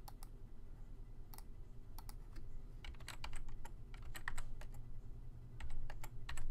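Typing on a computer keyboard: irregular keystrokes in short clusters as an IP address is entered, over a low steady hum.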